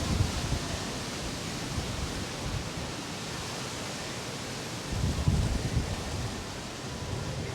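Gusty storm wind blowing across the microphone: a steady rushing hiss, with low buffeting gusts at the start and again about five seconds in.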